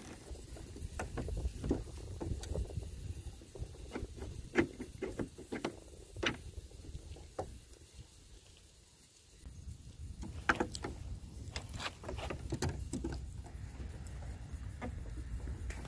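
Scattered light clicks and knocks of hands handling a car's rear spoiler, over a low rumble that drops away for a moment just past the middle.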